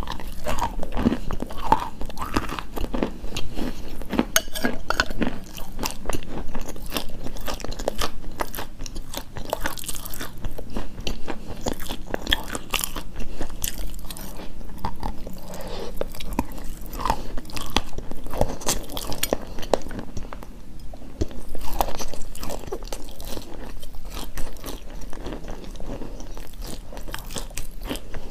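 A person biting and chewing crunchy chalk close to the microphone, a dense run of sharp crunches and crackles going on without pause.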